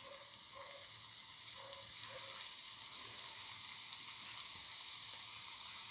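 Potato, garlic and chickpea-flour fritter batter sizzling as it fries in a little hot oil in a pan, a steady hiss that grows slightly louder as a second spoonful goes in.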